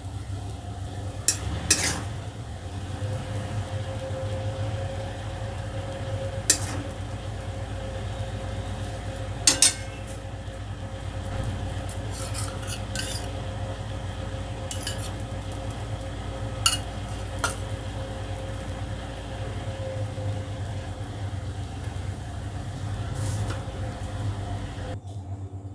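A metal utensil clinking and scraping against a ceramic plate while an egg roll filling is spread and arranged, with scattered sharp clinks over a steady low hum.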